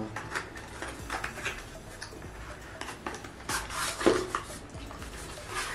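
Product packaging being handled and opened: scattered light taps, clicks and rustles, busiest about three and a half to four seconds in.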